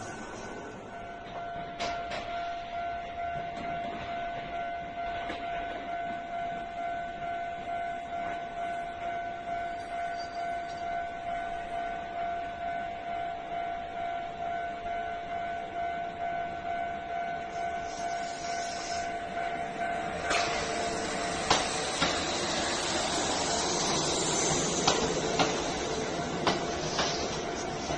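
Railway level crossing warning bell ringing in an even, quickly repeating ding. About twenty seconds in, a train arrives and its rising running noise, with a few sharp clacks of wheels over rail joints, builds up under the bell, which keeps ringing.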